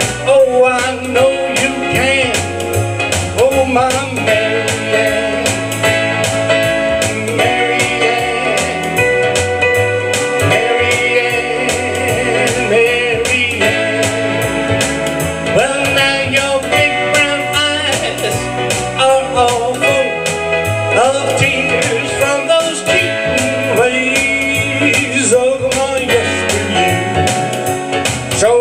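Electronic keyboard playing a song with held organ-like chords over a steady programmed drum beat.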